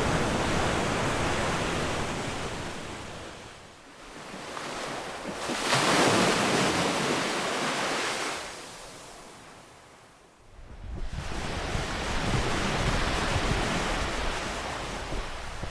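Ocean waves washing onto a shore in slow surges and ebbs. The wash dips to a lull about four seconds in, a stronger wave breaks around six seconds and drains away to another lull near ten seconds, then the wash builds again.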